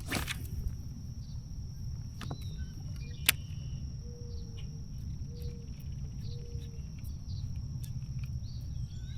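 Outdoor waterside ambience: a steady low rumble of wind and water under a continuous high-pitched insect drone, with a few bird calls and one sharp click about three seconds in.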